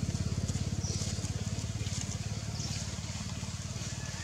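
Small engine idling steadily, a fast, even low throb.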